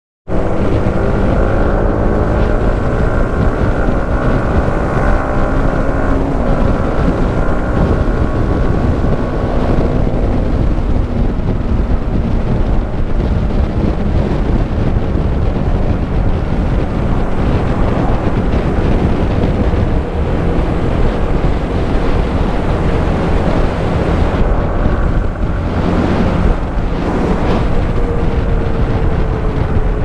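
Yamaha MT-15's single-cylinder engine running on the move, its pitch climbing through the first several seconds and falling again near the end as it slows. Heavy wind buffeting on the microphone runs underneath and often masks the engine.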